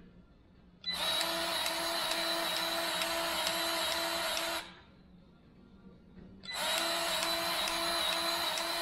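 Milwaukee M18 cordless grease gun pumping grease into a grease point on a tractor hedge cutter's arm: two runs of about three and a half seconds, two seconds apart, each a steady motor whine with a pulsing beat of about three strokes a second.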